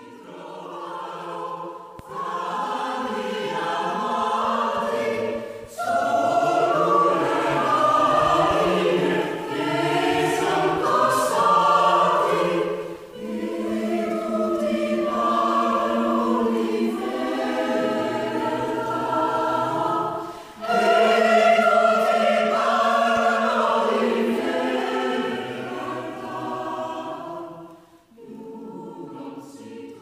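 Mixed choir singing, in phrases with brief pauses between them; the last phrase, starting just before the end, is softer.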